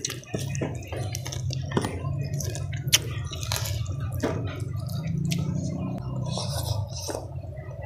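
Close-miked eating of rice and side dishes by hand: wet chewing with many small clicks, over a steady low hum.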